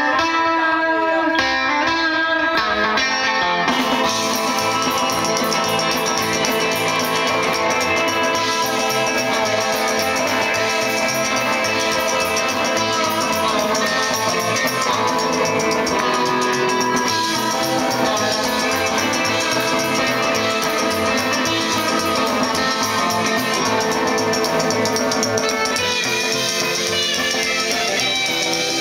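Live rockabilly band playing. An electric guitar carries the opening seconds with a thinner sound, then the full band with upright double bass comes in about four seconds in.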